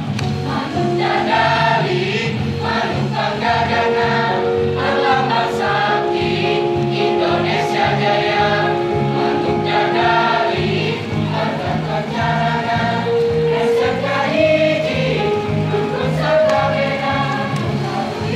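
A large mixed school choir of boys and girls singing an Indonesian regional song, with long held notes over a steady low beat.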